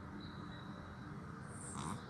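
A sleeping domestic cat snoring, with a short, louder sharp sound near the end.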